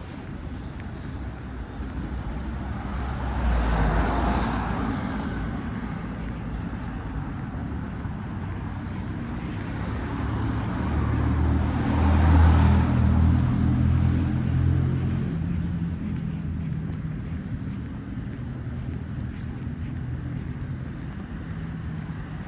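Road traffic: a steady hum of traffic with two vehicles passing close by, one about four seconds in and a louder one around twelve seconds in with a low engine drone.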